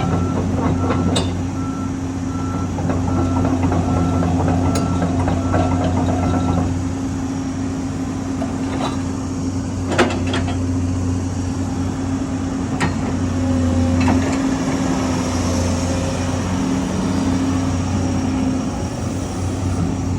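Komatsu PC228USLC-2EO excavator's diesel engine running steadily. For about the first six seconds a beeping alarm sounds in regular pulses, and a few sharp knocks are heard.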